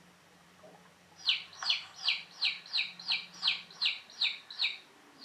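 A chick's peeping, played back from a children's sound book: a run of about ten quick, high, falling 'pew' calls, a little over two a second, starting about a second in.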